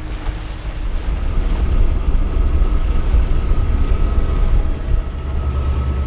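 Wind buffeting the microphone over the rush of water along the hull of a sailboat under way, a heavy, uneven low rumble.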